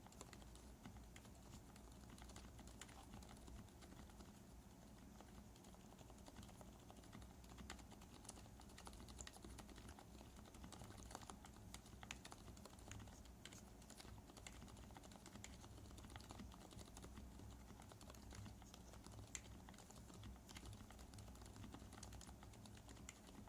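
Typing on a mechanical keyboard with lubed Zilent silent tactile switches fitted with Outemu Ice V2 top housings: a steady stream of faint, muted keystrokes.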